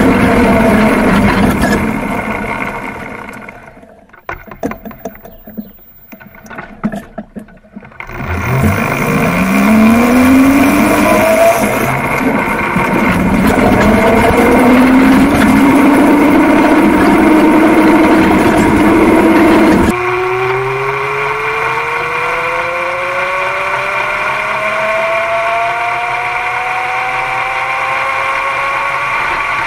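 Electric go-kart running on a car alternator used as its motor, with a chain drive: a whine that rises and falls in pitch with speed. It fades almost out for a few seconds, then climbs sharply in pitch as the kart accelerates again. Near the end the sound switches abruptly to a closer, quieter view of the drive, with the whine slowly rising in pitch.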